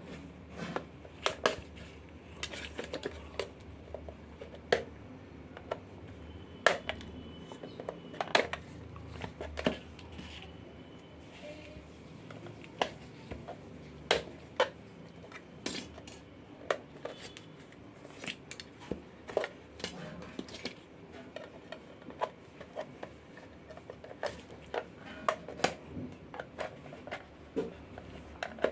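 Irregular sharp clicks and knocks of tools and hard plastic as a Bluetooth speaker's casing is worked open.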